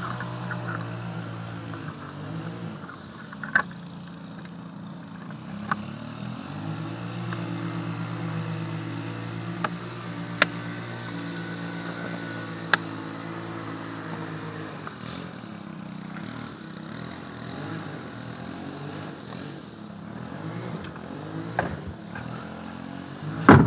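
A vehicle engine running steadily, with a few sharp clicks and knocks, the loudest near the end.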